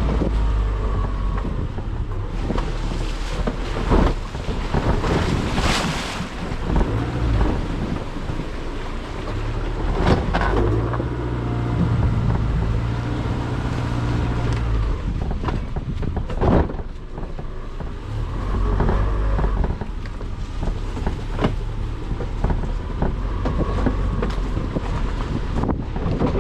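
Car being driven: engine running under a continuous rumble of road and tyre noise, with wind buffeting the microphone. A few sharp thumps come through, at about 4, 6, 10 and 16 seconds in.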